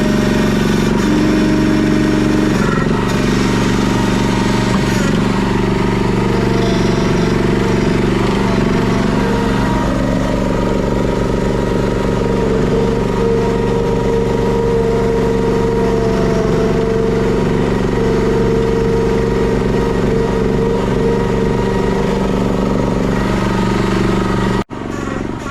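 Honda GX390 single-cylinder engine on a John Deere 60 skid steer running steadily at working speed, its pitch shifting slightly now and then. The sound breaks off for an instant near the end.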